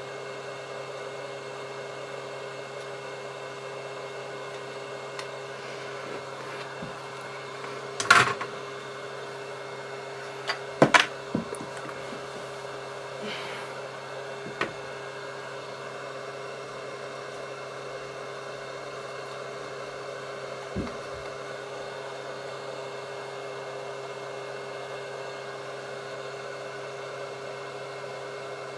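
Steady electrical hum of running bench equipment, with a few short sharp clicks and taps of tools on the board, mostly around a third of the way in.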